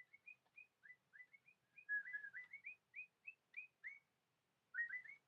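A pet bird chirping faintly: a quick run of short rising chirps for about four seconds, a brief pause, then more chirps near the end.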